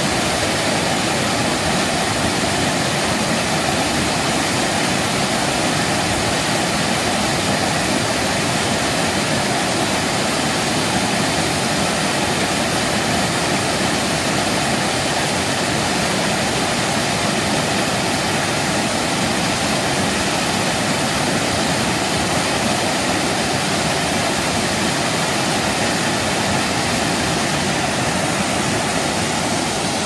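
A waterfall close by: water pouring over a rock ledge into a pool, a steady, even rushing.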